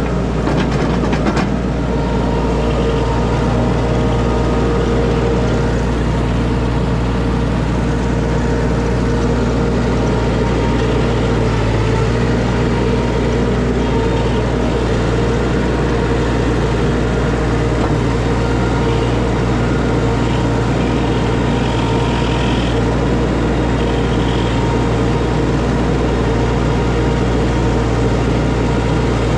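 Tracked mini skid steer's engine running steadily during digging and grading, with a few sharp clicks about a second in.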